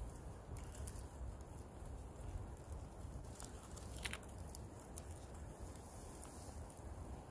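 Faint handling sounds of a hand picking orange mock oyster mushrooms off dead bark: a low rumble with scattered light clicks and crackles, the sharpest about four seconds in.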